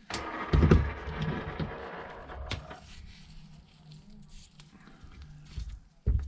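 Handling noise on a repair bench: a knock and clattering rattle as the roll of tape and tools are put away. A single click follows, then another knock near the end.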